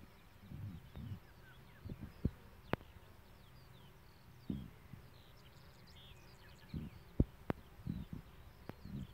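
Faint chirping of small birds over irregular low rumbles of wind on the microphone. Two pairs of sharp clicks are also heard, one pair between two and three seconds in and another about seven seconds in.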